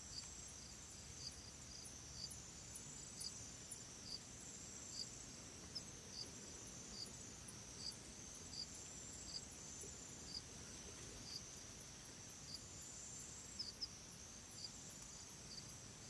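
Faint insect chorus, cricket-like: a steady high-pitched trill with a short chirp repeating about every second.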